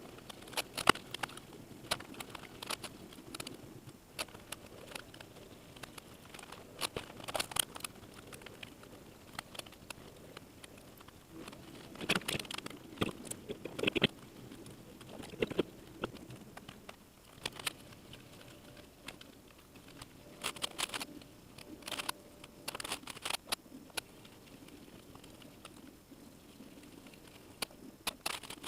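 Irregular clicks, taps and rustling from hands working on an Acer Aspire 5733 laptop's casing and parts during a cooling-fan replacement, with a few sharper knocks now and then.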